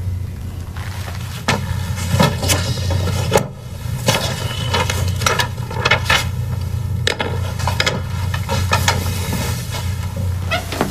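Scattered light knocks and rustles, about a dozen, over a steady low hum.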